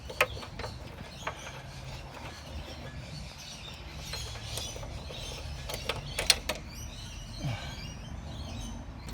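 Scattered sharp metallic clicks and light knocks from an 18mm socket spanner working on an engine mount bolt, with a short cluster of clicks about six seconds in, over a low steady hum.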